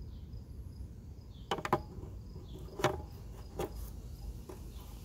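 Hard plastic clicks and knocks from handling a bulb socket in the back of a 3rd-gen Dodge Durango tail lamp housing: a quick run of clicks about a second and a half in, then three single clicks under a second apart. Crickets chirp faintly behind them.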